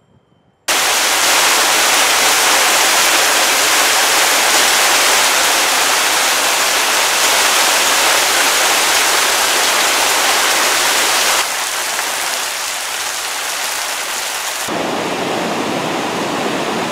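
Heavy rain pouring down, a loud steady hiss that starts suddenly about a second in and drops a little in level about two-thirds of the way through. In the last two seconds comes the fuller rush of a river in flood, which cuts off suddenly.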